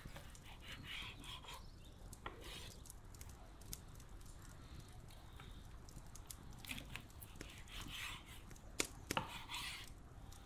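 Chef's knife slicing between the ribs of a rack of lamb on a wooden cutting board: short rasping cutting strokes, with two sharp knocks near the end.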